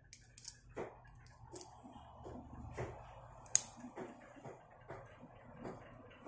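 Hands handling and binding cord around a rooster's leg: scattered small clicks and rustles, with one sharper click about three and a half seconds in.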